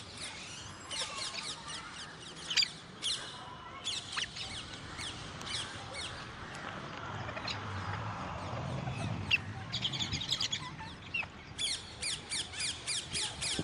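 Parrots calling in rapid runs of short, high, falling squawks, with pauses between the runs. A soft low rumble rises and fades about seven to nine seconds in.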